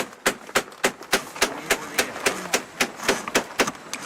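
Hammer tapping steadily on the wooden outwale of a canoe, about three to four sharp blows a second, working it down into place; the blows stop near the end.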